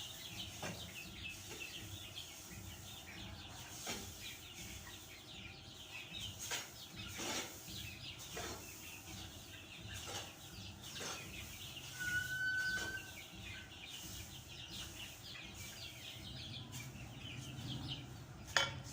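A flock of chickens clucking and chirping continuously, one bird giving a longer held call about two-thirds of the way through. Under it, short scraping strokes come roughly once a second as the litter bedding is raked, with a sharp knock near the end.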